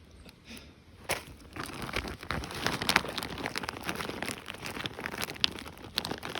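Plastic bags crinkling and rustling as packs of deadbait fish are rummaged through by hand. The crackling starts about a second in and runs on as a dense stream of small clicks.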